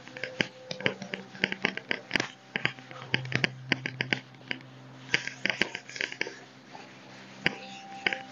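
Whiteboard eraser rubbing back and forth across a whiteboard: quick scraping strokes in runs, easing off in the last few seconds apart from one sharp tick.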